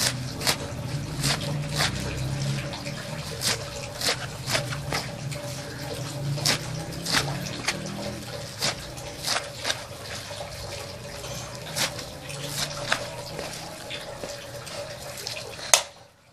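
Knife cutting through leafy greens over an aluminium tray, making sharp clicks at an irregular pace of about one and a half a second. Near the end there is one louder clack as the knife is set down on the metal tray.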